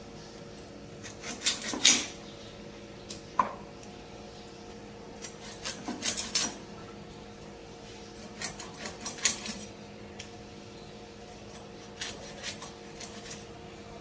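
Scattered clicks, taps and scrapes of a knife and chicken pieces against a steel tray as a whole chicken is gutted and cut up by hand, over a faint steady hum.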